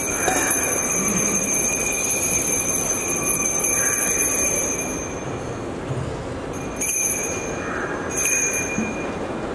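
Altar bell rung at the elevation of the chalice during the consecration of the Mass. The ringing carries on and fades out about halfway through, then comes back as two short rings near the end.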